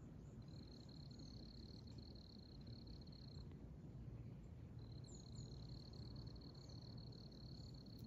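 Faint insect trilling: a steady, high, thin trill held about three seconds, a pause, then held again for about three more seconds, with a few faint short high chirps over low outdoor rumble.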